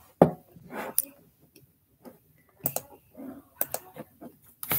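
A few scattered sharp clicks, spaced irregularly, with soft faint rustle between them.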